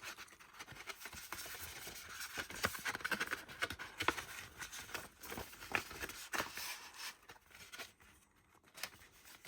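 A Blu-ray case and its cardboard slipcover being handled: sliding, scraping and rustling with scattered light clicks, dying away near the end.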